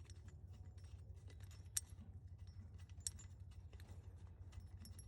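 Faint small metallic clicks and clinks of the idler pulley bolt and pulley being worked loose by hand, with two sharper clicks a little under two seconds in and about three seconds in, over a low steady hum.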